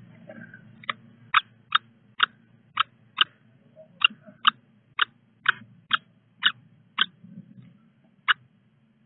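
Newly hatched common kestrel chicks begging for food at the nest, giving a quick series of short, sharp peeps, about two a second, then one last peep after a short pause.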